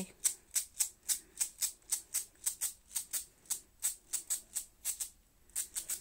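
Background music: a light percussion rhythm of short, hissy shaker hits, about four a second.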